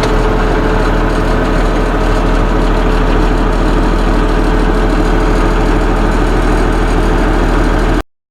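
Case International 956XL tractor's six-cylinder diesel engine running steadily at an even speed, then cutting off abruptly just before the end.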